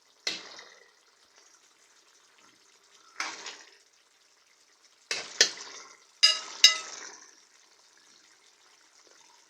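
Spoon stirring a tomato sauce in a cooking pot: four short bursts of clinks and scrapes against the pot, a few seconds apart.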